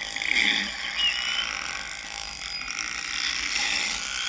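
Narwhal vocalizations: rapid click trains with short high whistles, one rising whistle about a second in.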